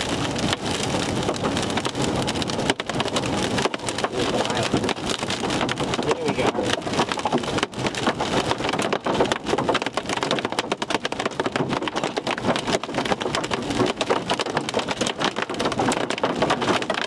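Hail and rain pelting a moving vehicle, a dense, continuous crackle of sharp hits.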